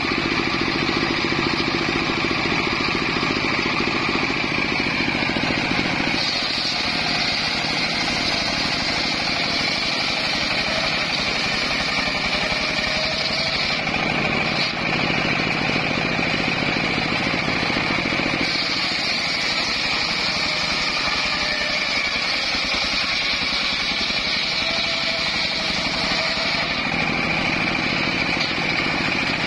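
Homemade circular sawmill running with a steady whine. Twice, from about six to fourteen seconds in and again from about eighteen to twenty-seven seconds in, a higher hiss joins as the blade saws through timber.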